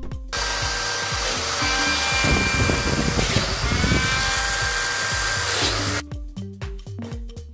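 A power tool running for about six seconds: a loud whirring hiss with a steady whine that dips briefly in the middle, as if under load, and then picks up again before it stops abruptly.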